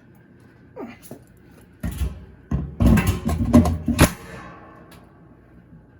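Clanking and knocking of metal washer parts being handled during a rebuild. It comes as a cluster of uneven knocks about two to four seconds in, and the last one rings briefly.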